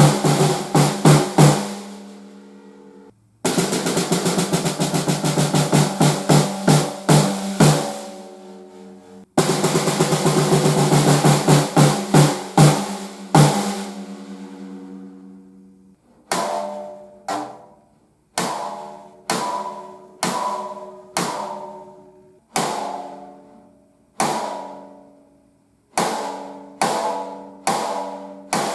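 Snare drum with an Evans single-ply coated batter head, played first in rolls and rapid accented strokes in three passages that each ring out, then in single strokes about once a second from about halfway through, each hit ringing with a clear tone.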